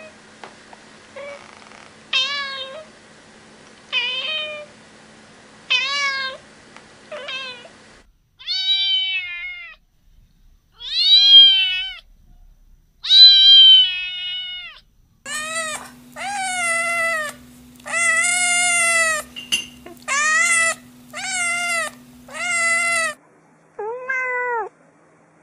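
Domestic cats meowing in turn. A grey adult cat gives short meows about every two seconds. A grey kitten follows with three longer meows, then another cat meows rapidly over and over, ending with two lower meows.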